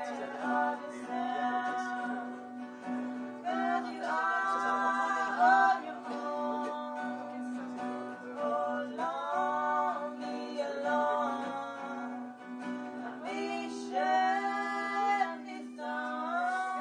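Live acoustic pop-folk song: a female voice singing phrases a few seconds long to strummed acoustic guitars, over a steady low tone.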